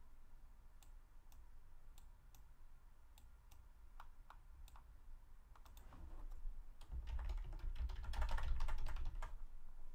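A few scattered sharp clicks, then computer keyboard typing: a quick, dense run of keystrokes from about seven seconds in as a name is typed.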